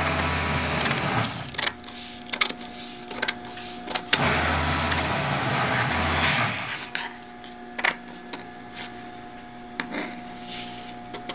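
Metal scissors cutting brown pattern paper on a table. There are two longer stretches of paper scraping and rustling as the sheet is cut and moved, and scattered short snips and clicks.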